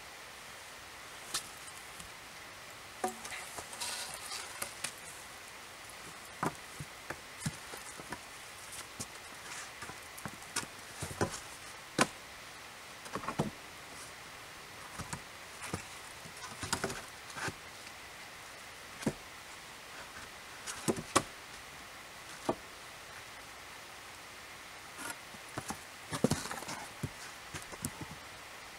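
Irregular knocks, clicks and rustles of boots, clothing and wooden poles as a person climbs onto a raised log bed and settles down on it, over a steady outdoor hiss.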